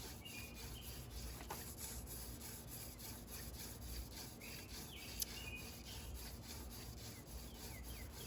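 Hand drill friction fire-making: a horseweed spindle spun back and forth between the palms, its tip grinding into a shortleaf pine fireboard in a steady rub. Birds chirp a few times in the background.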